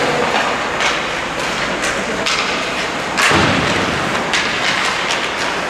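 A series of irregular knocks and thuds over a steady background noise, about one a second or so; the loudest, a heavier thud, comes about three seconds in.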